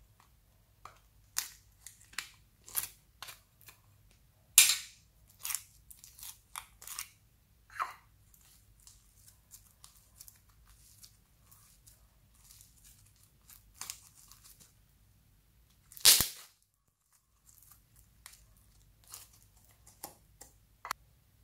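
Thick purple slime pulled from its plastic tub and stretched by hand, making irregular sticky crackles, pops and snaps. Two louder pops come about four and a half seconds in and about sixteen seconds in.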